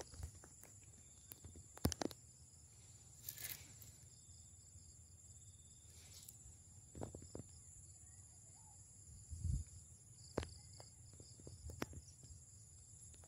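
Crickets chirring steadily, with a few scattered knocks and brief noises, the sharpest about two seconds in.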